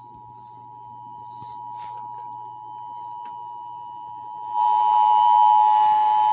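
Emergency Alert System two-tone attention signal: two steady tones sounding together, growing gradually louder and then jumping louder about four and a half seconds in.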